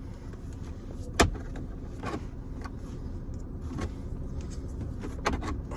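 A few sharp clicks and knocks of plastic trim tools prying at a plastic interior trim panel, the loudest about a second in, over a low steady hum.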